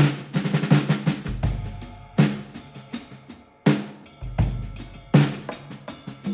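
Background music with a drum-kit beat: snare and bass-drum hits with deep bass thuds.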